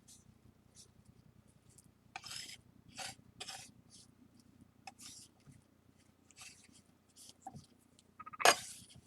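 Palette knife scraping across a tray, mixing flour and water into a paste: a series of short rasping strokes, with one sharper click near the end.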